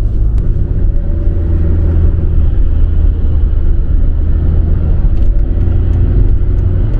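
Car driving at motorway speed, heard from inside the cabin: a loud, steady low rumble of engine and road noise.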